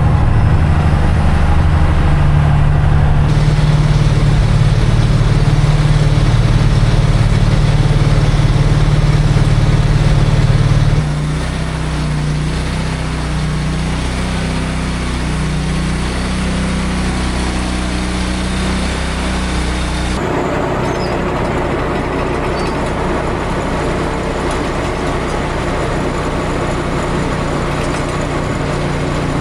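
Heavy diesel engine running steadily with a low hum. It is louder for the first ten seconds or so, then drops suddenly to a quieter, steady run.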